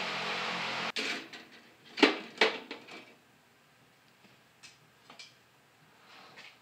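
A steady hiss that cuts off suddenly about a second in, then metal clinks and knocks as tongs set forged railroad-spike pieces onto the wire rack of a toaster oven for tempering. The two loudest clinks come about two seconds in, half a second apart, followed by a few fainter taps.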